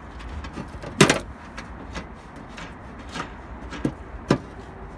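Scattered clicks and knocks of a socket wrench and extension bar against a 10 mm bolt and the car's steel tailgate while the bolt is being undone, the loudest about a second in.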